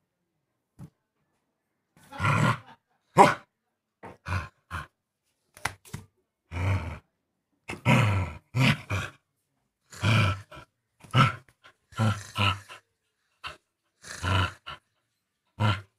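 Indian pariah dog growling in short rough bursts while it plays with a flip-flop in its mouth, about a dozen growls starting a couple of seconds in: play growling.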